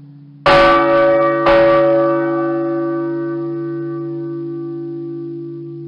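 A large bell struck twice, about a second apart, then ringing on with a long, slowly fading hum.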